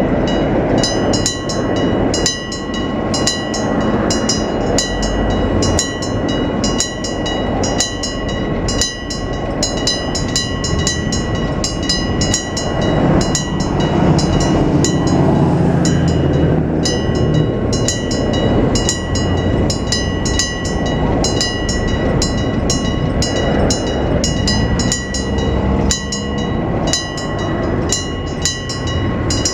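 Level-crossing warning bell, a Nippon Signal EG1003 AC electric bell, ringing continuously with a steady, regularly repeated ring that drops out briefly about two-thirds of the way through. Partway through, a Hiroshima Electric Railway train passes over the crossing with a low rumble.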